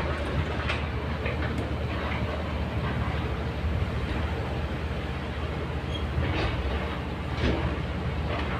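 Kobelco crawler excavator's diesel engine running steadily as the machine swings, with a few sharp metallic clanks from the machine.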